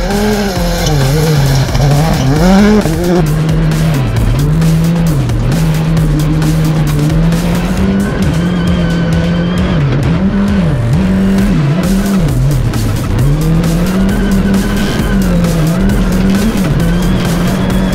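Rally car engine heard from inside the cockpit at full attack on a gravel stage, the revs repeatedly climbing and dropping sharply with gear changes and lifts, over frequent sharp clicks and clatter.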